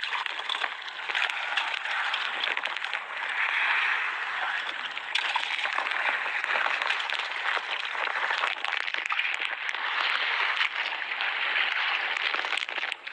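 Choppy sea splashing and hissing against a small wooden outrigger boat, with many small crackles and knocks throughout.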